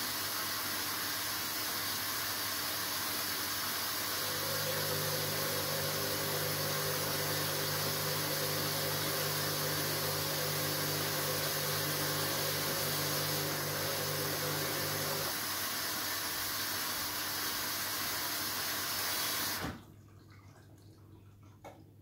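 Water rushing through a Hoover Dynamic Next washing machine during its cycle. A low steady hum joins in for about ten seconds in the middle, and the flow cuts off suddenly near the end.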